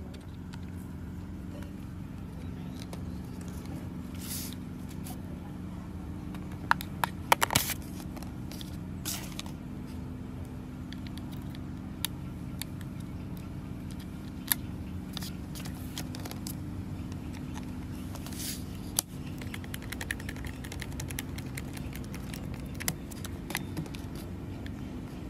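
Small clicks and scrapes of a screwdriver and a thin metal pick working on an angle grinder's plastic housing and brush holder: a quick cluster of clicks about a quarter of the way in, then single clicks every few seconds. A steady low hum runs underneath.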